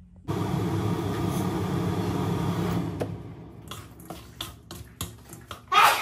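Seafood stir-frying in a wok: a steady rushing noise for the first two and a half seconds, then a wooden spatula scraping and tapping against the wok in quick irregular strokes, with one louder clatter near the end.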